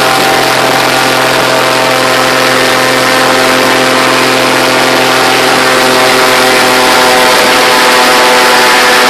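Airboat's engine and propeller running steadily at speed: a loud, even engine drone with a rushing hiss over it.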